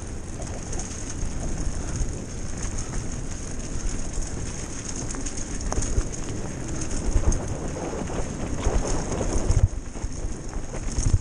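Mountain bike rolling fast down a dirt and gravel trail: tyre rumble and crunch with the bike's parts rattling and clicking over bumps, and wind buffeting the microphone. The jolts get louder near the end.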